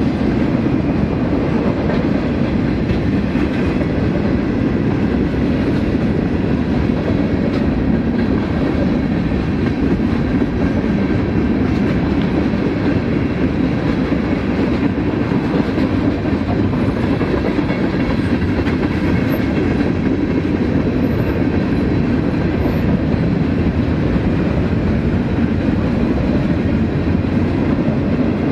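Freight train cars rolling past over a grade crossing: a steady rumble of wheels on the rails. A crossing bell rings faintly above it.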